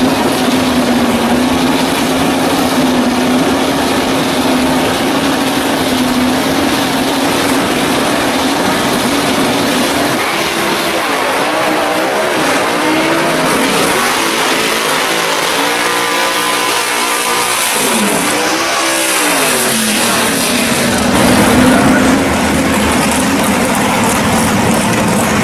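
First-generation Camaro drag car's engine running loud at a steady pitch. About ten seconds in it is revved up and down repeatedly for several seconds, then it settles back to a steady pitch. A burst of hissing noise comes about three-quarters of the way through.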